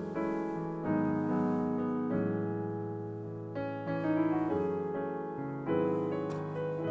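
Background piano music: notes and chords struck about every second or so, each fading before the next.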